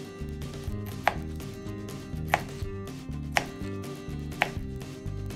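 Small kitchen knife cutting cucumber on a plastic cutting board, the blade knocking sharply on the board four times, about a second apart.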